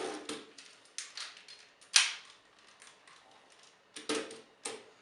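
Hard plastic parts of a Transformers Energon Tidal Wave figure clicking and knocking as two of its components are plugged together. It is a scattering of sharp clicks, the loudest about two seconds in, with a few more near the end.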